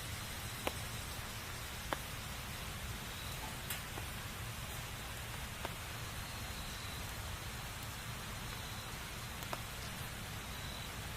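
Wood fire burning: a steady soft hiss with five sharp crackling pops spread irregularly through it, the loudest about two seconds in.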